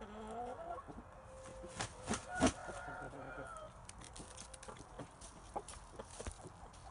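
Shamo gamecock clucking in short calls, with a few sharp knocks, the loudest about two and a half seconds in.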